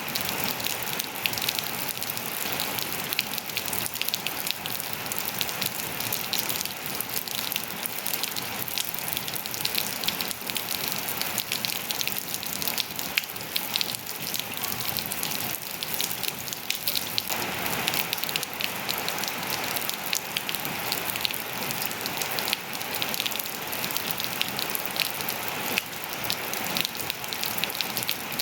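Steady rain falling, with many separate drops pattering on surfaces. About seventeen seconds in, the sound abruptly grows fuller and heavier.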